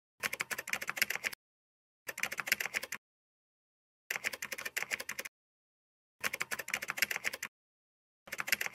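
Typing sound effect: runs of rapid keystroke clicks, each about a second long, broken by silent gaps. Four runs come evenly spaced, and a fifth starts near the end.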